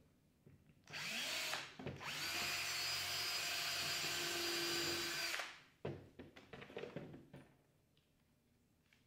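Cordless drill driving a screw into a wooden roof truss: a short spin about a second in, then a steady run of about three and a half seconds that stops. A few light clicks of handling follow.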